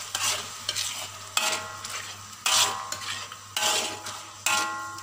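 Metal spatula scraping around a wok while a chili sauce is stirred: about six strokes, roughly a second apart, with the boiling sauce sizzling between them.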